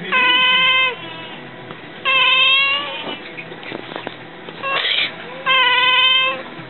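A cat meowing three times, each call long and level in pitch, just under a second apart in length; a short noisy burst comes between the second and third calls.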